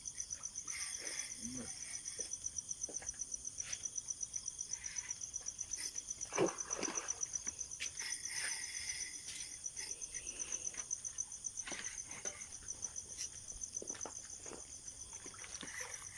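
Insects calling in a steady, rapid, high-pitched pulsing chorus. A brief, louder sound cuts in once about six seconds in.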